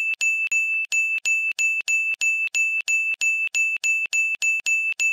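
A single high-pitched bell-like note struck over and over at the same pitch, about three times a second, each strike ringing briefly: an electronic chime looping under the end card.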